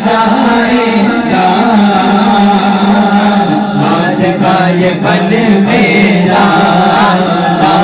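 Unaccompanied naat singing through microphones: a man's voice holds long, wavering notes over a steady hummed drone from a second backing singer (giraa).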